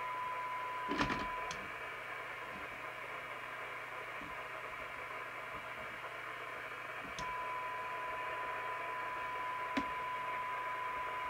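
CB radio receiver's speaker hissing on a weak, backed-off signal-generator signal, with the generator's steady test tone showing through the noise; the tone drops out about a second and a half in and comes back about seven seconds in. A few short clicks near the start and once near the end. The hiss is the receiver working close to its noise floor, as is done when peaking the IF transformers.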